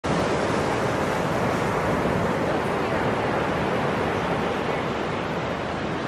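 Atlantic Ocean surf breaking and washing up the beach: a steady, even rush of water.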